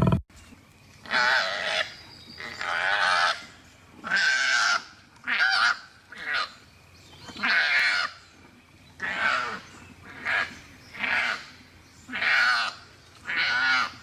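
Koala calls: a series of about eleven short, high, wavering cries, each under a second long, coming roughly once a second. At the very start, the tail of a louder, low grunting koala call cuts off.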